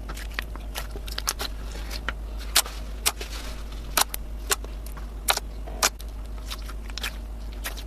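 Slime being squeezed and pressed, giving irregular sharp pops and crackles over a steady low hum.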